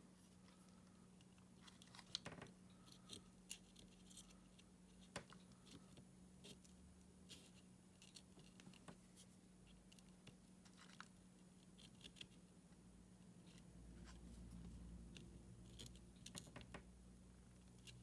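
Near silence with faint, scattered clicks and small scraping sounds of small objects being handled, over a steady low electrical hum; a low rumble swells briefly about fourteen seconds in.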